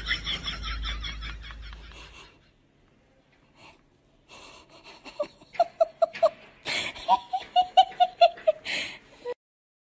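A person laughing in rapid, high-pitched pulses that die away about two seconds in. After a short lull, laughter starts again in quick short bursts, mixed with a few knocks and rustles.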